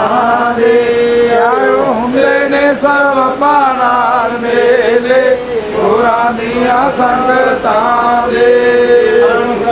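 Men's voices chanting a Sikh devotional hymn (dharna) in long held notes that bend and slide.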